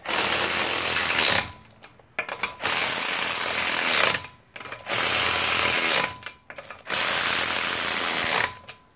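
Cordless ratchet run in four bursts of about a second and a half each, with short pauses between, spinning the lug nuts down onto the wheel studs one after another.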